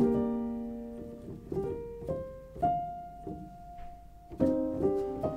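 Gentle solo piano music: a chord struck at the start dies away, a few more notes follow, one note is held from about two and a half to four seconds in, and a new phrase of notes begins near the end.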